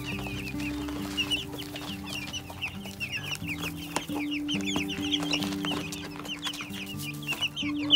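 Silkie chicks peeping: many quick, high chirps overlapping, with a few sharp taps among them. Soft background music with sustained low notes plays underneath.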